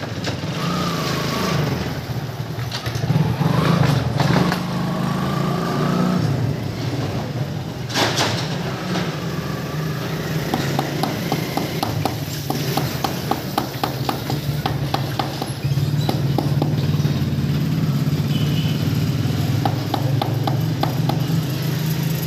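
A motor engine running steadily with a low drone that wavers in pitch for the first few seconds. Quick light ticks come in runs partway through and again near the end.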